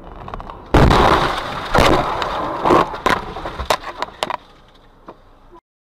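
Car crash recorded from inside the car: a sudden loud impact about a second in, then crunching and a string of sharp cracks and knocks over the next three seconds, fading off before the sound cuts out.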